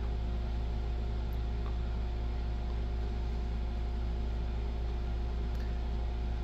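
Steady low mechanical hum of room machinery, like a fan or air conditioner, with a few faint clicks.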